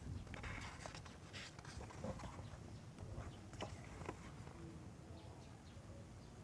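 Faint paper rustling and a few soft, irregular taps and clicks from a picture book being handled, its page turned.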